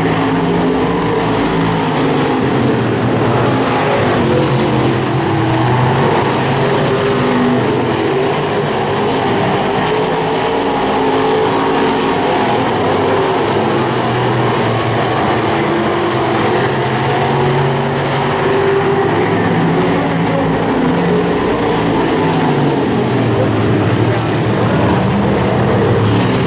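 Several dirt-track stock car engines running hard around the oval together, their overlapping engine notes rising and falling as the cars go by.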